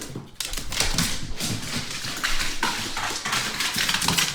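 A dog in a commotion, with a dense run of quick clattering and scuffling through the whole stretch.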